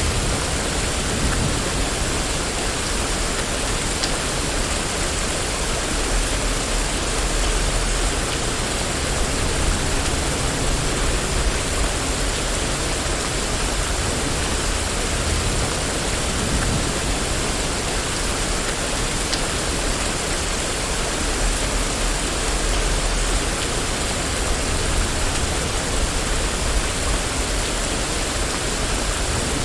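Steady rain on a street: an even hiss of falling rain with a low rumble underneath that swells now and then, and a few faint drip-like ticks.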